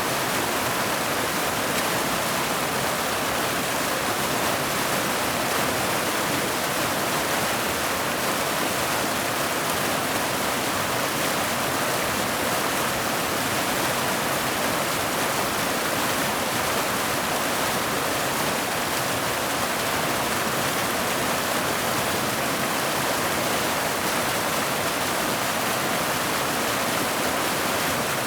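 Mountain waterfall: water cascading down boulders into a pool, a steady, even rush with no breaks or separate splashes.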